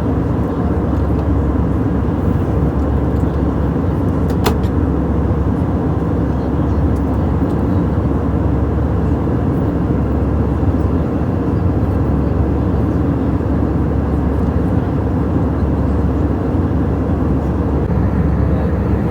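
Steady cabin noise of a passenger airliner in flight: an even, low rumble of engines and rushing air, with one short click about four and a half seconds in.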